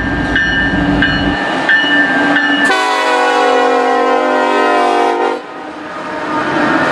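Union Pacific freight locomotives passing close, diesel engines rumbling with a bell ringing at an even beat. About three seconds in, the air horn sounds one long multi-note chord for about two and a half seconds and then cuts off.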